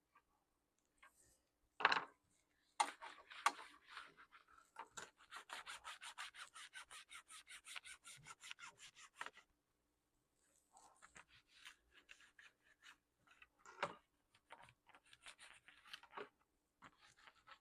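Faint rubbing and scrubbing on a laptop part as it is cleaned by hand. There is a steady run of quick back-and-forth strokes, about five a second, in the middle, scratchy strokes before and after it, and a few light knocks.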